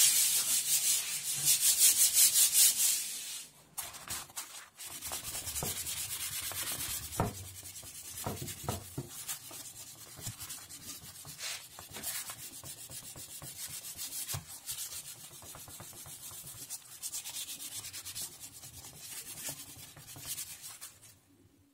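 Sandpaper worked by hand on a wooden board. The first three seconds or so are loud, fast back-and-forth strokes. Then comes quieter, uneven rubbing with a small folded piece of sandpaper along a cut edge, with scattered light scratches and ticks.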